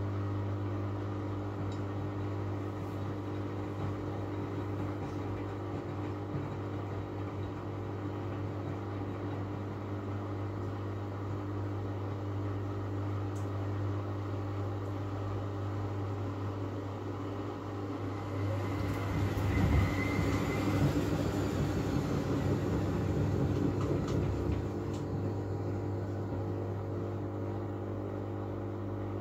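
Miele W433S front-loading washing machine at the start of its first interim spin: the drain pump hums steadily while the drum turns. About two-thirds of the way through the drum briefly speeds up, louder and rougher with a rising whine, then drops back. This spin interval is held back by an out-of-balance load and suds lock.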